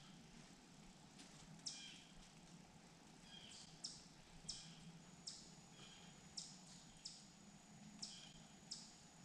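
Faint, short, high bird chirps repeated about a dozen times, roughly one a second at uneven spacing, over a quiet low background hum.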